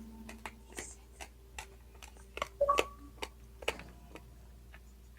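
Dry, uncooked spaghetti crunching and snapping as it is chewed: a dozen or so sharp, irregular cracks, loudest in a cluster about halfway through.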